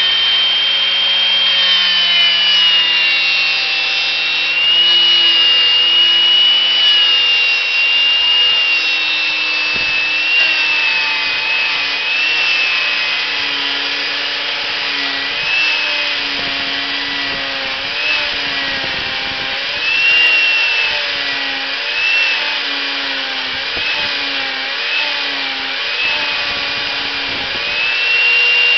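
Housing-joint (ōire) router on a sliding carriage jig running and cutting into a timber beam: a high, continuous motor whine whose pitch dips and recovers again and again as the bit bites into the wood.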